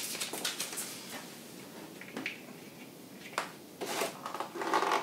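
Light handling noise: a few brief clicks and rustles as small plastic and metal parts of the kit and its cardboard box are handled on a table.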